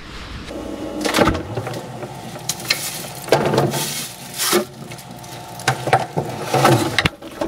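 Crinkly plastic bag rustling, with irregular knocks and clunks as food is handled and put into a small refrigerator.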